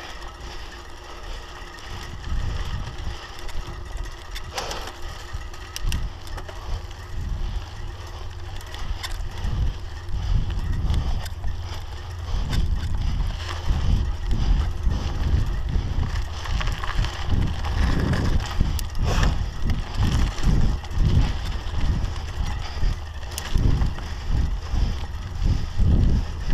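Scott Scale 960 mountain bike ridden over a dry dirt singletrack: a steady low rumble of tyres on the trail, with wind buffeting the microphone. It grows louder and bumpier, with irregular thumps, from about ten seconds in.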